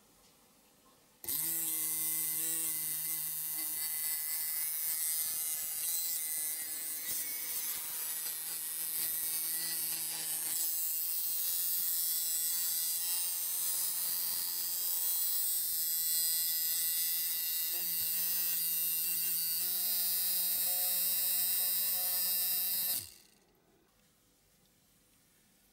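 Small battery-powered electric motor in a diecast Dinky Hawker Hurricane model, spinning its propeller. It is switched on about a second in and runs as a steady buzzing hum with a hiss, its pitch shifting a little now and then, and is switched off abruptly near the end.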